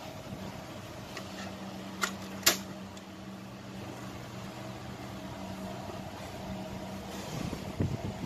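Small fan motor of a mini evaporative air cooler running with a steady hum. Two sharp clicks come about two seconds in, and there is handling noise on the plastic casing near the end.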